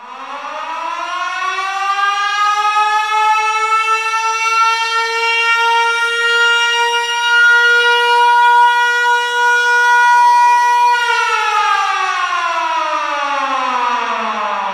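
A siren starting out of silence, rising in pitch over about three seconds to a steady wail, then falling in pitch from about eleven seconds in, still falling at the end.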